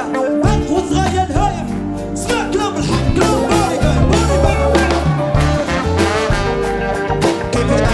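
A live band playing a reggae-style tune, with keyboard, guitars and drums over a steady, repeating bass line.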